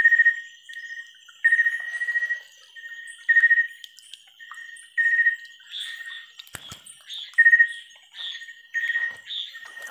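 Chorus of night-calling animals: short high chirping calls repeat a little more than once a second over a steady high-pitched trill. A single sharp click comes about six and a half seconds in.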